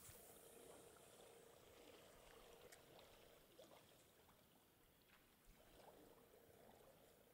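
Near silence: faint outdoor background with a faint steady hum and a few soft ticks.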